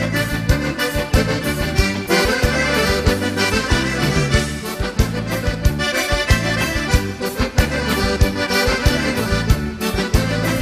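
Instrumental break of gaúcho dance music: a piano accordion plays the lead over a bass line and a steady drum beat.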